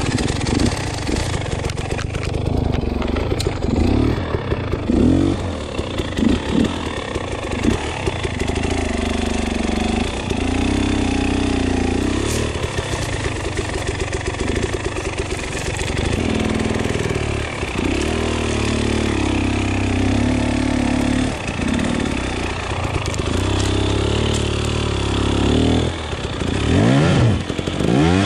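KTM 300 EXC two-stroke enduro engine catching and starting right at the outset, then running at low revs with repeated throttle blips, and revving up in quick rising sweeps near the end.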